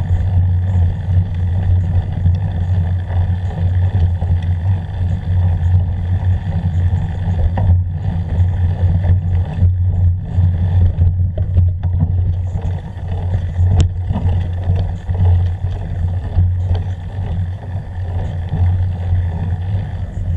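Steady low rumble picked up by an action camera moving along a dirt forest trail, unchanging in pitch throughout, with a couple of faint ticks partway through.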